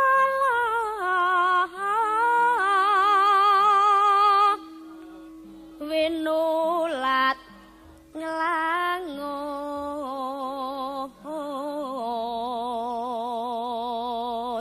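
A solo voice singing a slow Javanese melody, holding long notes with a wide, even vibrato, over a steady sustained accompanying tone. The song comes in phrases separated by short pauses.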